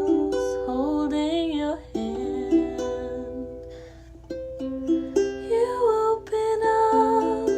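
A solo original song: a wordless sung melody over a plucked acoustic string instrument, with notes held and bending in pitch.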